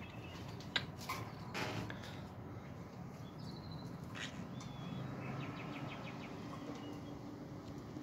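Pet parrot in a wire cage giving a few short, high chirps, with a few sharp light clicks early on, over a steady low background noise.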